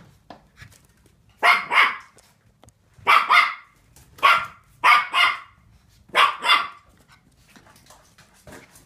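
Finnish Lapphund puppy barking, about nine sharp, high puppy barks, mostly in quick pairs.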